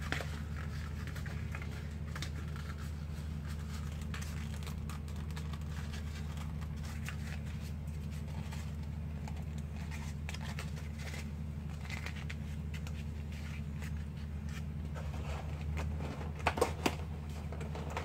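Corrugated cardboard being folded, creased and pushed into place by hand: scattered crinkling and scraping, with a few sharp knocks near the end, over a steady low hum.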